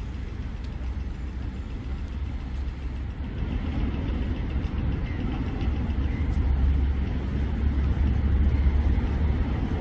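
Road traffic dominated by the low engine rumble of a heavy vehicle, likely a garbage compactor truck, running close by. It grows louder from about a third of the way in.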